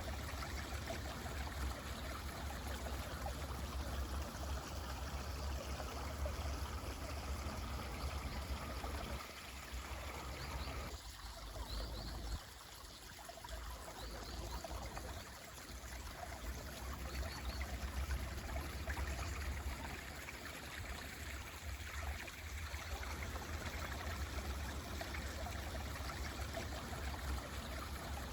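Mountain stream flowing steadily, with a deep low rumble under the rush of water. The flow sounds quieter for a few seconds about halfway through, and a few brief high bird chirps come through around the middle.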